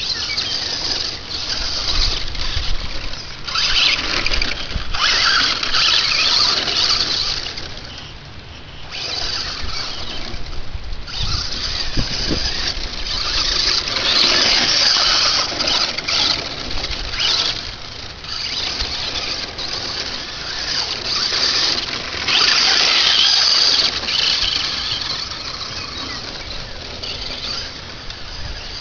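Traxxas Slash VXL electric RC truck's brushless motor and drivetrain giving a high-pitched whine that swells and fades in repeated bursts of a few seconds as the truck accelerates and eases off, with short lulls between runs.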